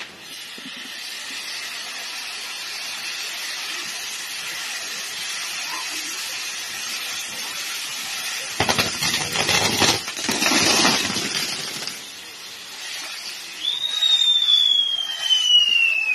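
Pyrotechnic castle tower burning: spark fountains hiss steadily, then a few seconds of dense crackling about two-thirds through. Near the end a loud whistle from the firework set starts high and slides slowly down in pitch.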